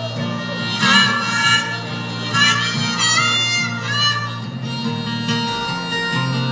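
Live harmonica solo of bending, wailing notes over a steady guitar accompaniment, the harmonica busiest in the first half.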